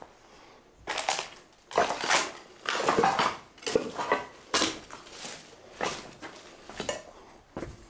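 Footsteps crunching over broken bricks and rubble, with loose pieces clattering: irregular crunches about one or two a second, starting about a second in.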